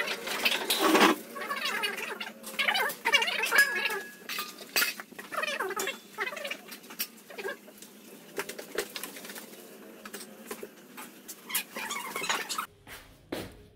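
Dogs eating dry kibble from stainless steel bowls: a run of short crunches and clinks of metal bowls, thinning out near the end.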